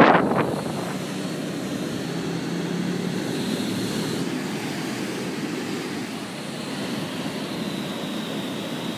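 Steady wash of surf breaking on a sandy beach, with a faint low drone underneath for a couple of seconds. Wind buffets the microphone briefly at the very start.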